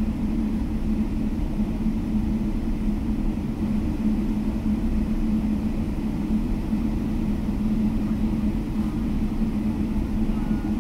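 Steady low hum and rumble of a jet airliner's cabin on the ground after landing, with engines at idle and the air system running.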